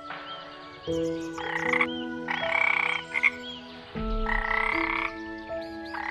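A frog croaking in four bursts, each about half a second to a second long, over background music with sustained notes.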